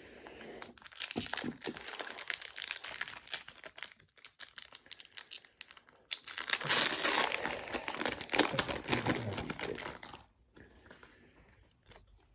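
Plastic wrapper of a Disney Lorcana booster pack crinkling as it is torn open and handled, in two long stretches of dense crackle, the second one louder.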